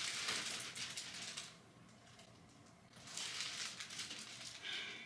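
Plastic wrapping on a large boxed vanity mirror crinkling as the mirror is handled, in two short bursts.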